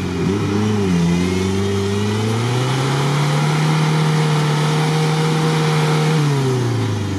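Suzuki Samurai's engine revving hard under load as the 4x4 struggles stuck in deep swamp mud. The revs dip about a second in, climb and hold high for several seconds, then fall away near the end.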